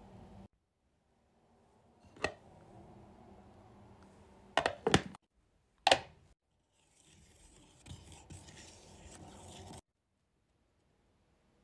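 A few sharp clicks and knocks from handling a metal wax-melting pot and plastic mould: one about two seconds in, a quick cluster of about three near the middle, and one more a second later, followed by a few seconds of soft scraping.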